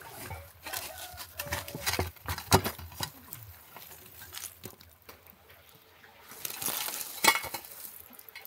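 Metal shovel scraping and scooping charcoal embers out of a tandoor, with irregular clinks and knocks of the blade against the coals and the oven wall. Near the end a shovelful of coals is tipped out with a rattling pour and a sharp knock.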